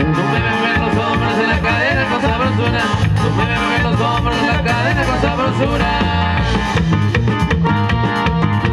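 Amplified live norteño band playing: a button accordion melody over strummed guitar, bass and drum kit, at a steady dance beat.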